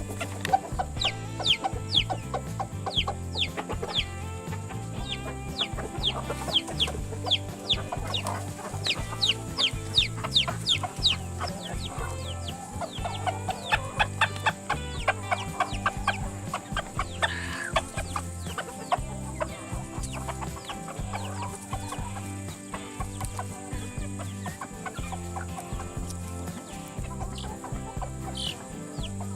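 Chickens clucking, with long runs of quick, high falling peeps in the first half, over background music.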